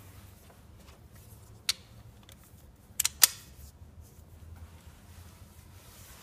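Sharp metallic clicks of hand tools, a socket extension and a spanner knocking on metal while parts are refitted in the engine bay: one click, then about a second later three quick clicks, the last the loudest. A faint low hum lies underneath.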